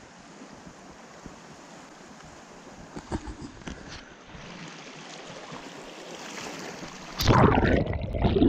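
Steady rush of river water flowing, with a few faint knocks about three seconds in. Near the end a much louder burst of noise covers it.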